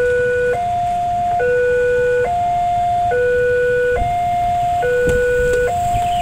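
Railway level-crossing warning alarm sounding its two-tone signal, a lower and a higher steady tone alternating just under once a second, while the crossing is closed for an approaching train. A low rumble rises underneath near the end.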